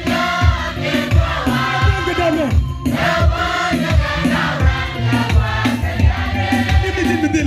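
Group of voices singing a gospel song together over a steady drum beat.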